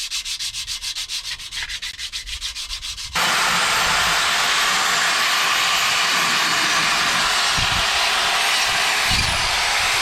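Sandpaper being rubbed over metal to clean it, in quick back-and-forth strokes of about six a second. A little after three seconds it changes suddenly to a steady, louder continuous rasping hiss of sanding.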